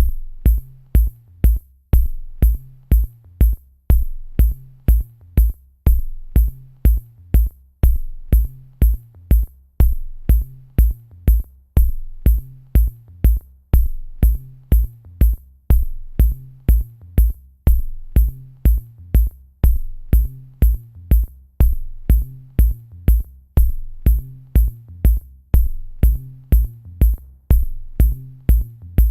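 Electronic background music with a steady drum-machine beat and a bass line.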